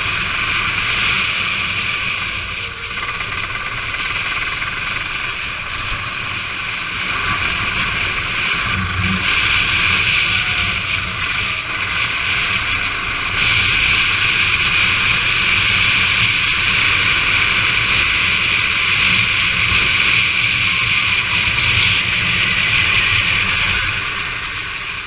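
Go-kart engine running at racing speed, heard from a camera on the kart itself, mixed with wind and wet-track spray noise. The sound stays steady, with no big rises or falls in pitch, and gets louder about halfway through.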